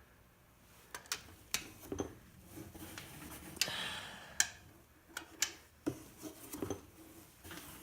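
Irregular clicks and a short rasp from a wrench and socket being worked on the cylinder head bolts of an LQ4 V8 as they are tightened by angle.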